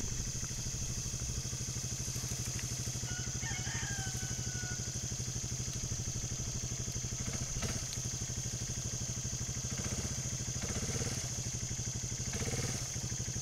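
1991 Yamaha Moto-4 250 ATV's single-cylinder four-stroke engine running steadily at low revs as the quad rolls down a grassy incline during a brake test it fails, unable to stop at will. A brief high squeak about three seconds in, and a few knocks and rattles from the quad later on.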